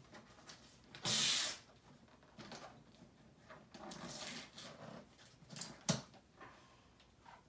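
Wrapping paper being torn off a present in a series of rips and crinkles. The longest and loudest rip comes about a second in, and there is a sharp short crackle near the end.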